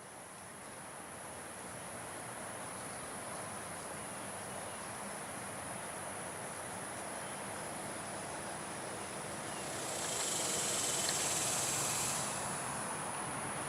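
Insects trilling in a steady high-pitched tone over a broad rushing hiss. About ten seconds in it grows louder and brighter for a couple of seconds.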